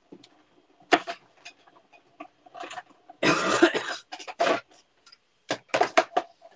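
A die-cutting machine run to cut a die through card: a series of sharp clicks and knocks, with a harsh noisy burst lasting under a second about three seconds in.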